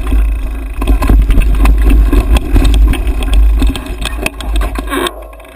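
Mountain bike rattling and knocking over a rough dirt forest trail, heard from a handlebar-mounted camera, with heavy wind rumble on the microphone. The noise dies down near the end as the bike slows.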